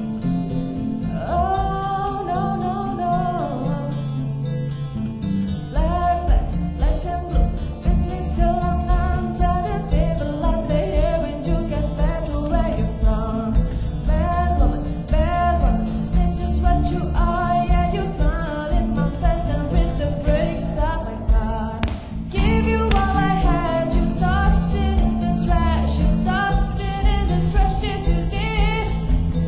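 Live band music: a woman singing lead over acoustic guitars, bass and percussion. The bass and beat come in about six seconds in, and the music breaks off briefly about two-thirds of the way through.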